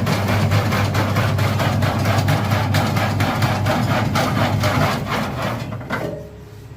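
Taro stick cutting machine running: an electric motor's steady hum under a rapid, regular clatter of cutting strokes. It winds down and stops about six seconds in.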